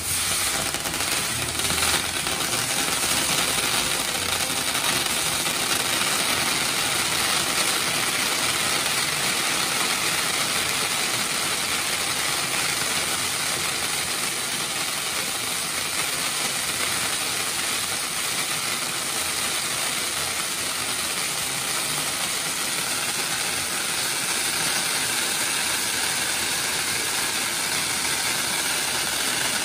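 Steady hiss of a castillo fireworks tower burning: pyrotechnic spark fountains and spinning fire wheels spraying sparks.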